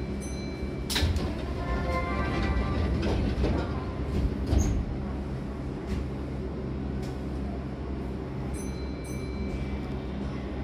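Keihan train's sliding passenger doors closing. A short sharp noise comes about a second in, then the doors slide across with some ringing tones, and a thump sounds as they meet about four and a half seconds in. Under it all runs the steady hum of the standing train.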